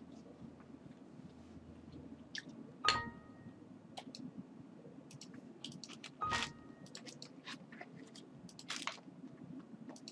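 Faint computer mouse clicks over a low steady hum, with two louder crackles about three and six seconds in.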